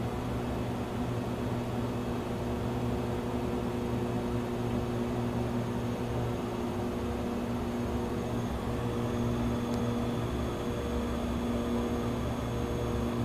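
Steady hum and hiss of an airliner flight simulator cockpit on approach, with a constant low drone.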